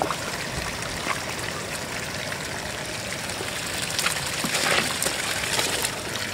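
Floodwater running steadily, with a louder patch of short sharp sounds from about four to six seconds in.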